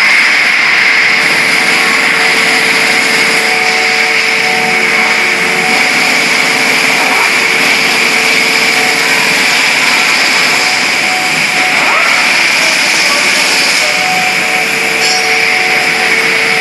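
Steady machinery noise in a factory hall: an even hiss with a faint steady hum underneath and no riveting strokes.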